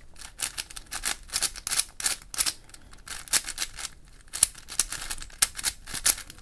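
QiYi MoFangGe WuShuang 5x5 plastic speed cube being turned quickly by hand: rapid, irregular clacking of the layers moving and snapping into place, several clicks a second. The cube turns very fast and light, so fast it is hard to keep in control.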